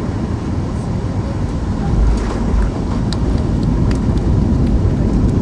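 Cabin noise inside a Boeing 737-800 rolling on the ground after touchdown: a steady low rumble of engines and wheels, with a bump about two seconds in and light clicks and rattles.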